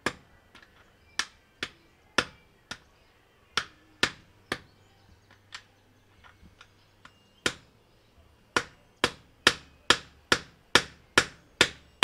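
Mallet blows on top of a mountain bike suspension fork's steerer tube, driving a star nut down inside: a string of sharp knocks, irregular at first with a pause of about two seconds midway, then an even run of about two to three blows a second.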